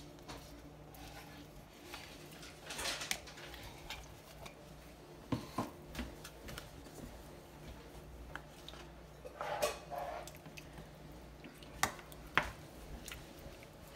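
Greek yogurt being scooped with a plastic measuring cup into a stainless steel pan of curry, then stirred with a wooden spoon: scattered soft taps and knocks of cup and spoon against the pan and a couple of brief scraping sounds, over a low steady hum.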